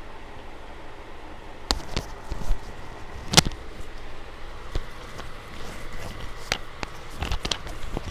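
Handling noise from gloved hands moving a smartwatch, phone and clip-on microphone: scattered clicks and knocks over a steady hiss, starting about two seconds in. One knock about three and a half seconds in is the loudest.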